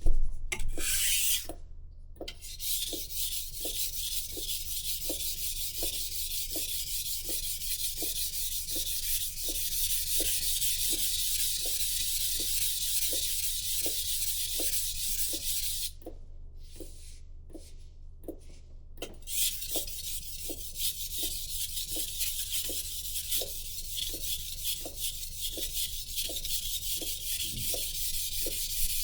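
A knife blade is stroked back and forth on a sharpening stone, a steady rhythmic scraping of about two strokes a second. The strokes stop for a few seconds about two-thirds of the way through, then start again.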